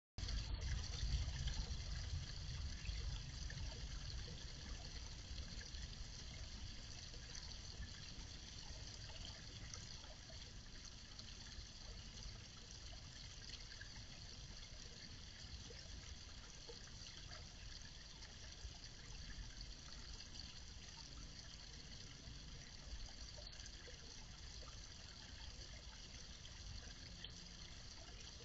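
Garden pond fountain water trickling steadily, with a low rumble that is strongest in the first few seconds and then eases off.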